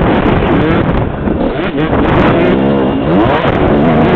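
Two-stroke Suzuki RM125 motocross engine running hard, its pitch rising and falling as the throttle is worked, with wind rushing over the helmet-camera microphone.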